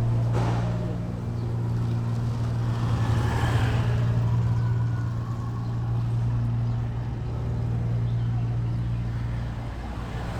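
A steady, low engine hum with an even pitch, running throughout.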